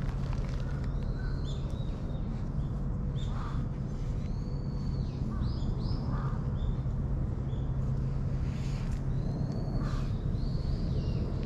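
Birds calling: several short high calls that bend in pitch, with lower calls every few seconds, over a steady low hum.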